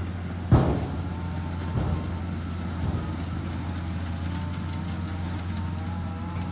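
Heavy diesel engine of a motor grader running steadily under load. A sharp clank about half a second in, and two lighter knocks after it, are likely the grader's blade or frame striking the aggregate.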